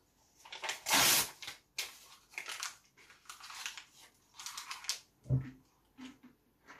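Printed photo paper being bitten off and chewed: a loud crisp tearing bite about a second in, then a run of short crinkling, crunching bursts as the paper is chewed. Near the end there is a dull knock, then faint gulps as he drinks from a plastic shaker bottle.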